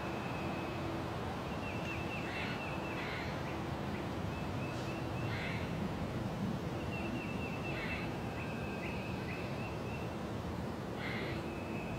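Forest ambience in spring: a steady low background hiss, with birds calling. A high, rapid trill repeats several times, and short rasping calls break in about five times.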